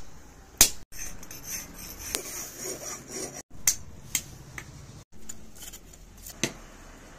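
Hand hammer striking a steel axe head on a steel block: single sharp metallic blows, about six, spaced a second or more apart and unevenly.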